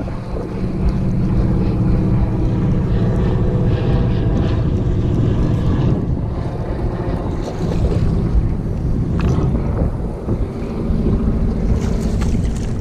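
Wind buffeting the microphone over the steady whirr of a spinning reel being cranked to bring in a shad on an ultralight rod. The whirr fades about six seconds in and picks up again near ten seconds.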